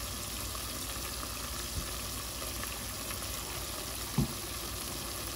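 Sofrito and recaito frying in hot achiote oil over high heat, a steady sizzle, with a brief knock about four seconds in.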